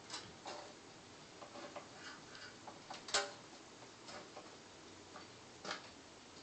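Scattered light clicks and taps of computer hardware being handled in a PC case, the two loudest about three seconds in and near the end.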